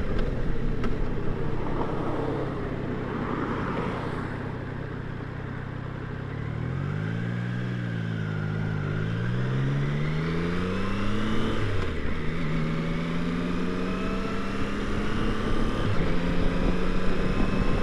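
Triumph Tiger Sport 660's three-cylinder engine running under way, heard under steady wind noise at the helmet. About halfway through, the engine note dips, climbs and falls again, then settles into a steady, slowly rising note.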